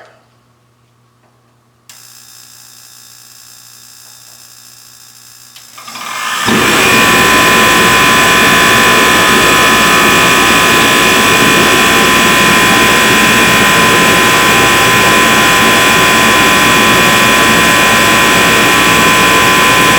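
John Deere AC-70-1 kerosene-fired forced-air portable heater, running on No. 2 diesel, starting up: a faint steady hum begins about two seconds in, then about six seconds in it comes up to a loud, steady running roar with a steady whine over it.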